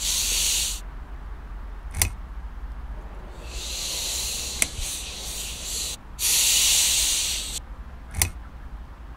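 A man shushing three times, long hissing "shhh"s, the middle one the longest, with three short sharp clicks in between.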